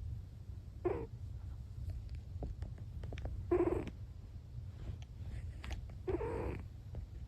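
A sleeping Munchkin cat snoring: three snores about two and a half seconds apart, the first short and the last two longer, over a steady low hum.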